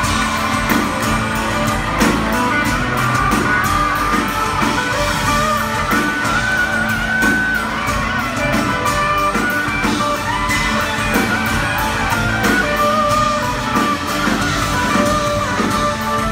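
Live country-rock band playing, with electric and acoustic guitars over a steady drum beat.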